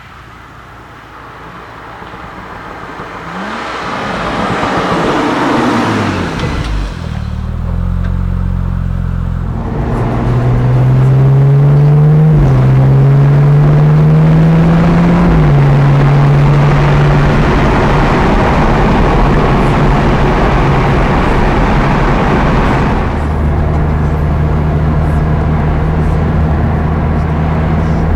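BMW M235i engine, growing louder over the first few seconds, then accelerating: its note climbs, drops sharply at a gear change and climbs again. After that it settles into a steady drone.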